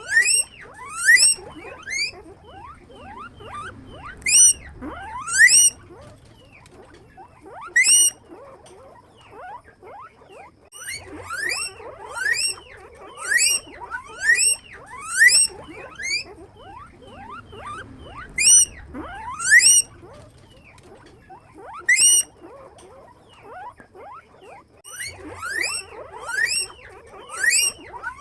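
Guinea pig squeaking: short, sharply rising squeals, one after another in quick runs, with brief pauses between the runs.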